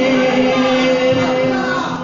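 A man singing an Urdu naat, holding a long steady note.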